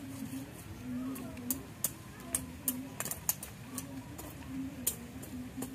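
Machete blade scraping and chopping at weedy soil, a series of sharp, irregular strikes, clustered in the middle. A low wavering tone comes and goes underneath.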